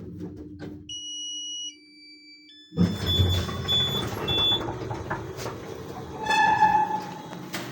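KMZ passenger elevator arriving at a floor: the drive's low hum stops about a second in, a few electronic tones sound, then the doors slide open with a loud mechanical clatter and a strong squeal near the end. The squeal is the elevator's creak.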